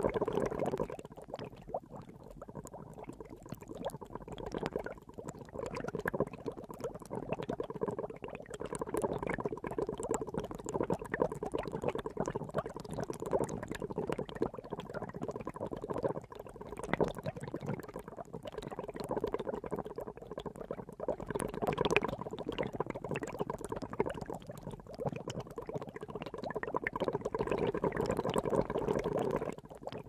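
Water boiling: a dense bubbling that swells and eases in loudness every few seconds.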